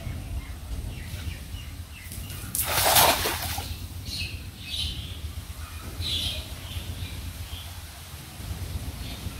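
A cast net splashing into shallow floodwater about three seconds in, followed by quieter water sloshing as the net is worked in the water.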